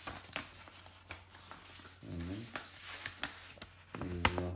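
Sheets of printed paper rustling and crackling as they are handled, with scattered short crinkles. A voice murmurs briefly twice, about two seconds in and, louder, near the end.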